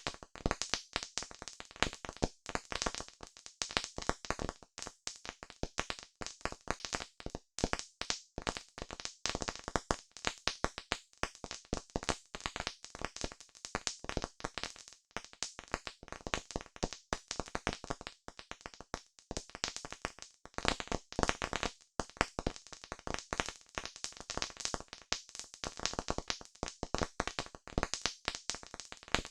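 Campfire crackling: dense, irregular pops and snaps, many a second, without a break.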